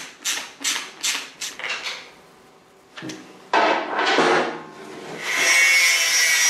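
Ratchet spanner tightening bolts on a steel plate, worked in quick strokes of clicks about three a second for the first two seconds. From about three and a half seconds in, an angle grinder cuts into steel box section: a short burst, then a longer steady cut near the end that is the loudest part.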